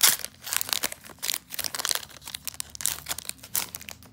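Foil wrapper of a Pokémon Sun & Moon Crimson Invasion booster pack being torn open and crinkled in the hands. The loudest crackle comes right at the start, followed by a run of sharp crinkles that die away near the end.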